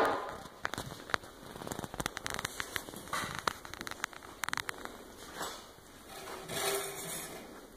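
Faint scattered clicks and crackles of handheld camera handling and footsteps as the camera is carried along the car, with a short louder rustle near the end.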